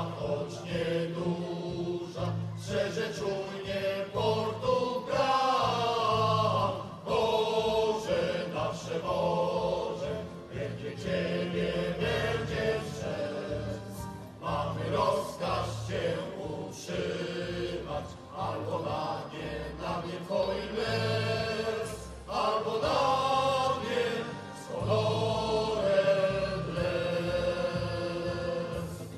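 A choir singing a song in phrases, with short breaks between them.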